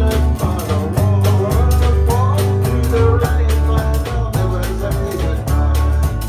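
Band music with guitar, bass and drums keeping a steady beat.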